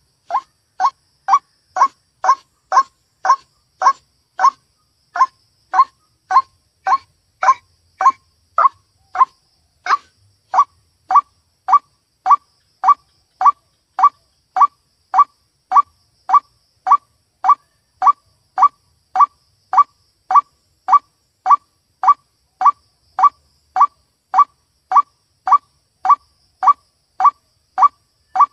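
White-breasted waterhen (ruak-ruak) call, a short pitched note repeated steadily at about two a second. It is a recorded lure call used to draw the bird in for trapping.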